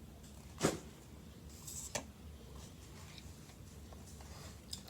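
Pokémon trading cards being handled: a sharp swish-snap about half a second in, then a soft rustle and a couple of small clicks as cards are shuffled through.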